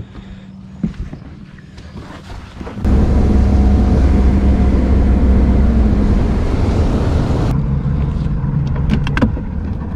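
Skeeter ZX190 bass boat's outboard motor idling with a steady low hum. About three seconds in it jumps abruptly to a loud rush of engine, wind and water as the boat runs at speed. The hiss fades near the end, leaving the engine's hum.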